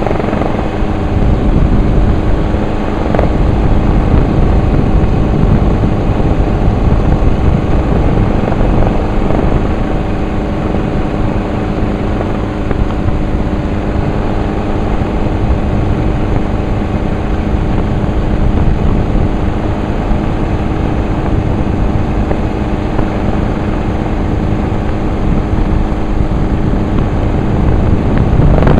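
Helicopter engine and rotor noise, steady and loud, heard from on board.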